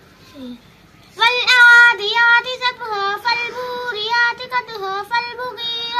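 A girl reciting the Quran aloud in a melodic chant, her high voice holding long notes and gliding through ornamented turns, starting about a second in.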